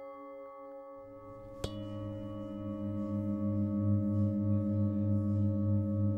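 Metal singing bowl ringing. A fresh strike lands about one and a half seconds in, then a deep tone swells louder and pulses steadily as a mallet is rubbed around the rim.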